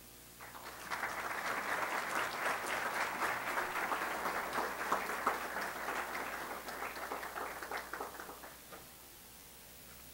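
Audience applauding: the clapping swells within the first second or two, holds steady, then thins out and stops about nine seconds in.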